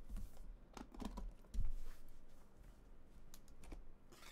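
Chrome latches on a gold metal briefcase-style trading card box being flipped open and the lid lifted: a series of light metallic clicks and knocks, the sharpest about one and a half seconds in.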